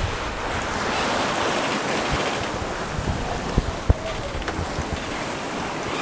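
Wind buffeting the microphone and sea rushing past a sailboat's hull, a steady loud rush, with two sharp knocks about three and a half and four seconds in.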